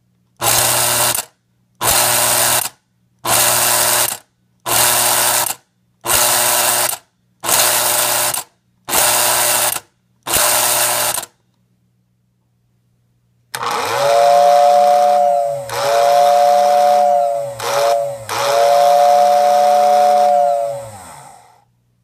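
Lionel automatic refrigerated milk car's solenoid mechanism buzzing in eight short bursts, about one every second and a half, each one a press of its control button. After a pause, a Lionel steam tender's motor-driven two-tone whistle sounds four blasts, the third one short, its pitch rising as each blast starts and sagging as each dies away.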